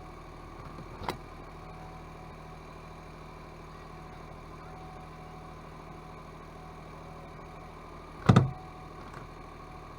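Smart fortwo 451 idling with a steady hum, broken by a sharp click about a second in and a much louder knock near the end: a knocking from the rear soft top, the abnormal noise the owner sets out to cure.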